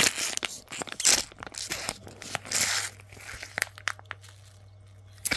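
Capri Sun foil juice pouch crinkling and crackling as it is handled, busiest over the first three seconds, then a few scattered clicks.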